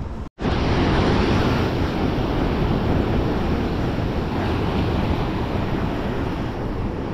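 Sea surf washing and breaking against breakwater rocks in a steady rush, with wind buffeting the microphone. The sound drops out for a split second just after the start.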